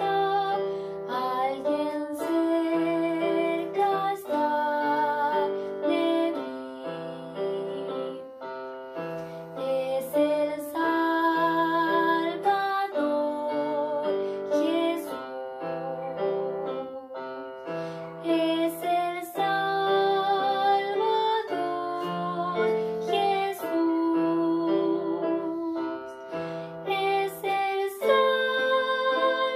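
A woman singing a Christian praise song (alabanza), with vibrato on held notes, over a steady instrumental accompaniment of sustained low chords.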